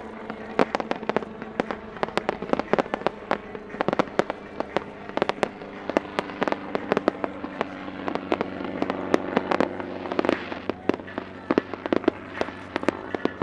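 Fireworks going off from and around a display helicopter in rapid succession: dozens of sharp bangs and pops, several a second, with a steady hum underneath.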